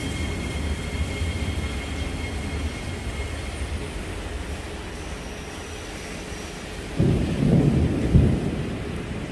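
Low rumble of an MRT train dying away over the first few seconds. About seven seconds in comes a sudden burst of low rumbling that lasts about a second and a half and is the loudest part.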